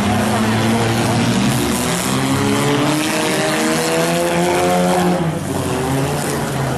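Several demolition derby car engines running at once, revving up and down over one another against a loud, dense background din.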